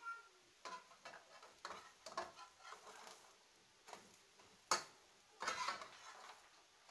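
Metal slotted spatula scraping and clicking against an aluminium frying pan while lifting and flipping a pancake, with one sharper knock a little under five seconds in.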